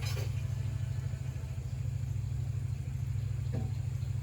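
A motor running steadily with a low, fast-pulsing hum, with a short knock at the start and another about three and a half seconds in.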